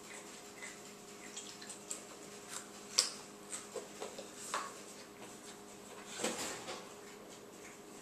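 Quiet room sound: a steady faint hum with scattered light clicks and taps. The sharpest tap comes about three seconds in.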